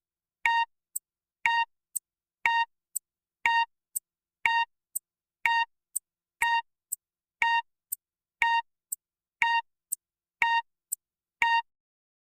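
Countdown timer sound effect: a short electronic beep once a second, twelve in all, each followed half a second later by a softer, sharper tick. The beeps stop shortly before the end.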